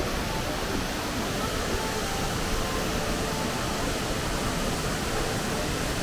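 Steady, even rush of Multnomah Falls, a tall plunging waterfall, heard close to its pool.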